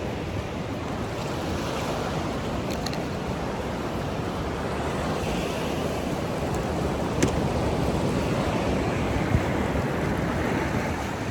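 Ocean surf washing against the shore, with wind buffeting the microphone as a low rumble. A couple of brief clicks stand out, one about seven seconds in.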